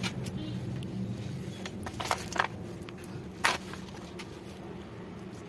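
A few soft clicks and taps, the clearest about three and a half seconds in, as wooden sticks are worked out of boiled soya chap rolls in a plastic bowl, over a steady low hum.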